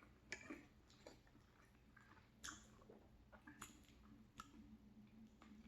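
Close-up chewing of a mouthful of macaroni and cheese: soft, wet mouth clicks and smacks, a few a second, over a faint low hum.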